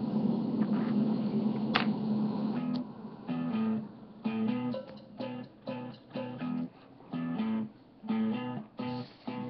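Guitar music: a held, strummed passage, then from about three seconds in short plucked notes or chords with gaps between them, roughly two a second.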